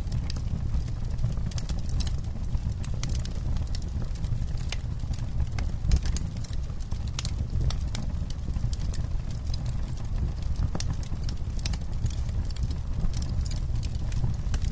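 Campfire crackling: irregular sharp pops and snaps of burning wood, the strongest about six seconds in, over a low steady rumble.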